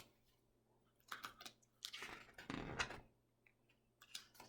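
Faint rustling and clicks of paper, a picture book's page being handled and turned, in a few short bouts.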